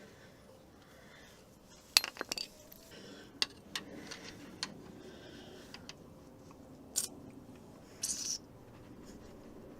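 Scattered metallic clicks and clinks of hand tools against engine parts while the timing chain tensioner is worked off: a quick cluster about two seconds in, single ticks a few times after, and a brief rattle near the end.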